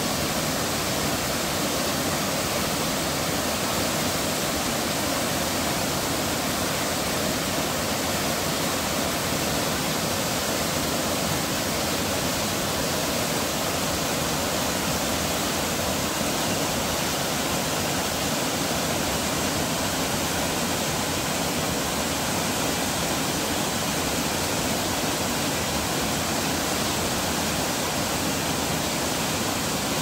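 Waterfall cascading over boulders: a steady, unbroken rush of white water, even from low to high pitch.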